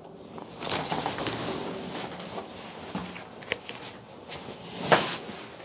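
Rustling and scattered soft knocks, with a louder thump near the end.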